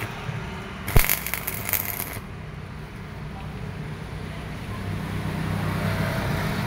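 Stick-welding arc crackling as an electrode tacks a steel flat bar. The arc is struck with a sharp snap about a second in and burns for about a second. Afterwards a low steady hum carries on and grows slightly louder near the end.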